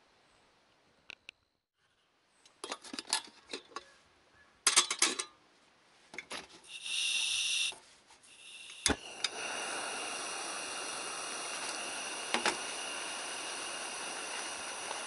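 Metal cookware clattering and clinking in a few quick clusters. About nine seconds in comes a single sharp click, followed by a steady hiss that runs on to the end.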